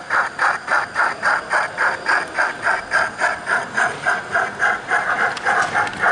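Sound-equipped 0 gauge model steam locomotive chuffing steadily, about four beats a second, as it runs.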